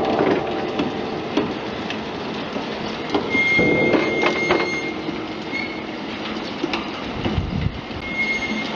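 Potato frying machine's mesh-belt conveyor and gear motor running: a steady mechanical rattle and rumble with scattered clicks, and a thin high whine that comes and goes.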